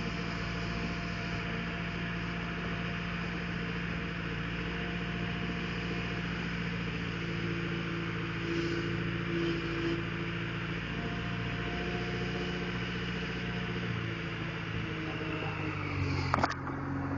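Caterpillar wheel loader's diesel engine running steadily while it pushes a heavy truck, with one sharp knock near the end.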